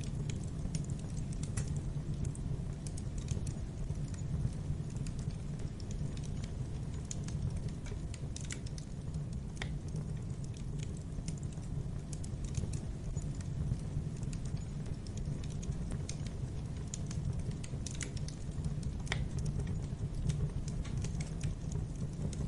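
Fire crackling in a fireplace: a steady low rumble of flames with irregular sharp pops and snaps scattered throughout.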